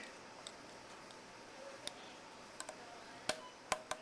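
About six light, sharp clicks and taps, scattered irregularly and strongest near the end, over a quiet room.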